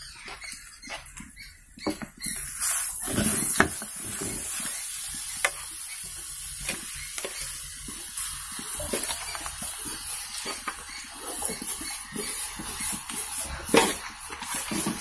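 Raw kadaknath (black chicken) pieces sizzling in hot oil among fried onions and masala, with a metal spoon stirring and clinking against the pan. The sizzle grows louder about two seconds in and then holds steady.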